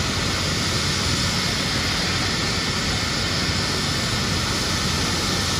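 Turbine helicopter running on the ground, a steady, unbroken rush of engine and rotor noise with a low hum underneath.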